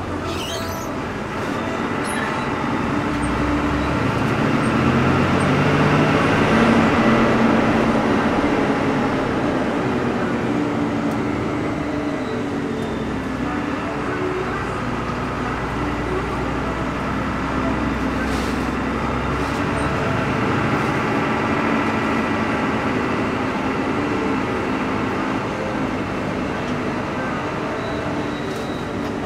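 Front-engined Hino AK bus's diesel engine and road noise, heard from inside the cabin. The engine swells for several seconds, then runs steadily at cruise.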